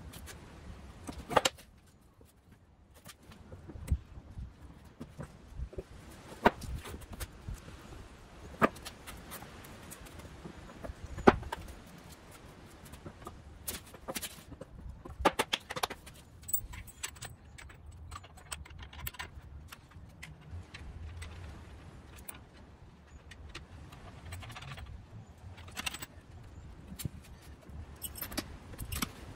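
Heavy pressure-treated 2x12 boards being lowered down threaded steel rods and stacked, giving scattered sharp wooden knocks and metallic clinks as the drilled boards bump the rods and each other.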